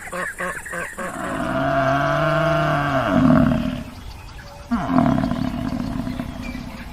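Two long, deep calls from a large animal. The first starts about a second in and lasts nearly three seconds; the second begins just before the five-second mark.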